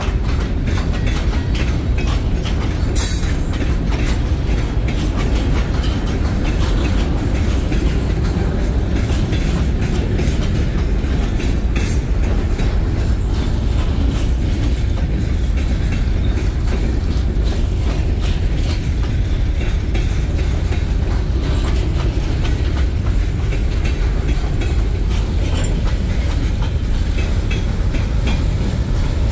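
Freight train hopper cars rolling past: a loud, steady rumble of the wheels and car bodies, with frequent short clicks from the wheels on the rail.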